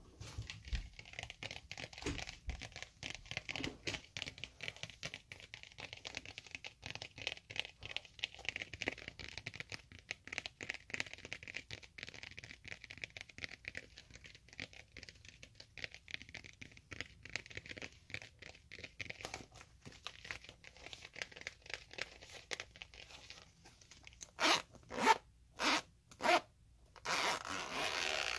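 Close handling of a zippered makeup bag, small scratchy rustles and clicks, then the bag's zipper pulled in several quick strokes near the end.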